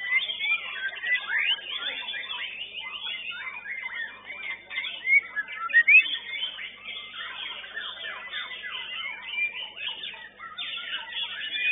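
White-rumped shama (murai batu) singing: a fast, varied run of chirps and whistles with a few sharp rising whistles, the loudest notes about five to six seconds in.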